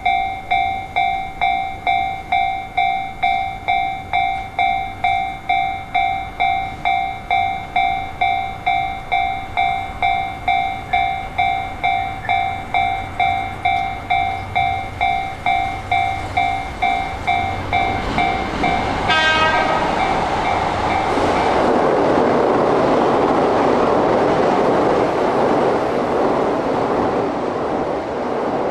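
Japanese level-crossing warning bell ringing about twice a second. About two-thirds of the way through, a short train horn blast sounds and the bell fades out. A locomotive-hauled passenger train then runs through the crossing with rushing wheel and rail noise and clatter.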